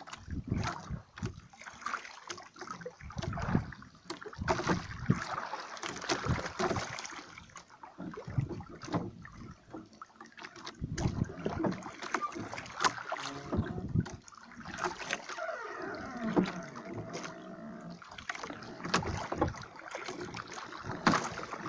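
Water slapping and lapping against the hull of a small wooden outrigger boat, in irregular surges, with scattered knocks.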